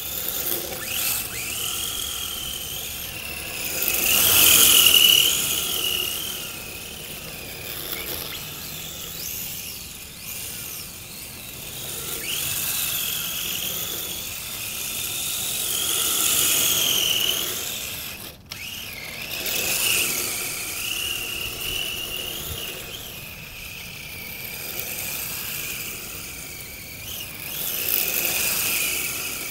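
Hobby King Snow Panther RC drift car driving and drifting on asphalt: a high motor and gear whine that rises and falls with the throttle, with tyre hiss, swelling each time the car comes close, loudest about four seconds in.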